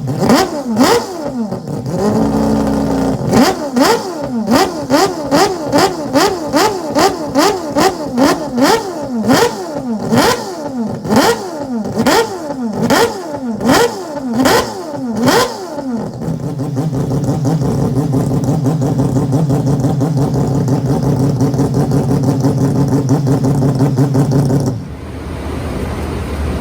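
Four-rotor Mazda rotary engine being blipped over and over, its pitch shooting up and dropping back about twice a second. It then settles into a steady idle, and near the end the sound cuts abruptly to a quieter steady engine noise.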